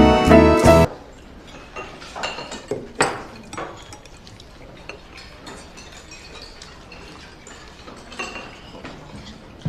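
Billiard balls clicking and knocking together in a string of light, irregular clicks, with one sharper click about three seconds in.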